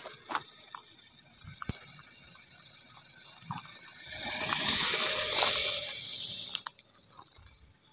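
A car driving past close by, its engine and tyre noise swelling for about two and a half seconds and then cutting off abruptly.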